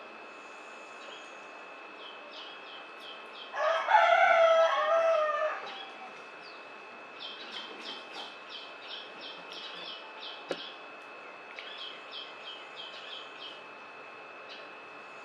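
A rooster crows once, a loud call of about two seconds, a few seconds in. Afterwards small birds chirp in quick runs of short high notes.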